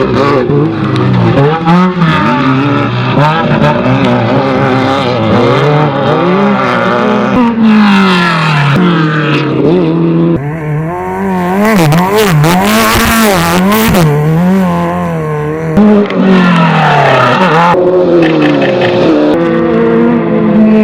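Off-road race vehicle engines revving, their pitch climbing and dropping over and over as they accelerate and shift through the gears. About eleven seconds in, a loud rushing hiss rises over the engine for a few seconds.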